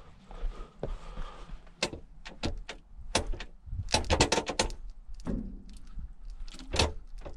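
Metal knocks and clanks as the piston and chrome rod of a Cat E70B excavator's lift cylinder are worked by hand into the cylinder barrel, a tight fit against the new seals. There are scattered single knocks, with a quick run of clanks about four seconds in.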